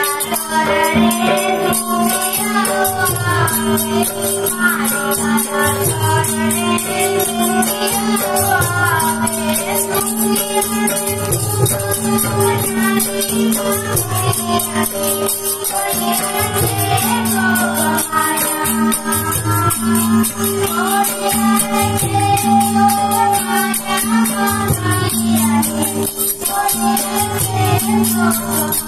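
Live Gujarati garba folk music: a tabla keeps a steady beat while an Indian banjo (bulbul tarang) plays the melody over a constant drone, with a continuous high jingling rattle running through it.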